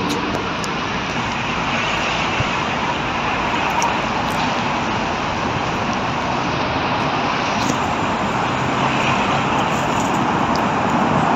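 Steady street traffic noise: a continuous wash of passing road vehicles.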